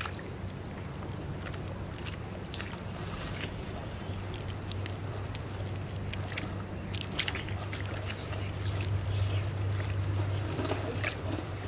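A wet cast net being dragged through shallow water and mud onto a bank: sloshing, squelching and small splashes with scattered crackles, over a steady low hum.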